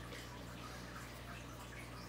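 Quiet room tone: a steady low hum with a faint water-like trickle and no distinct events.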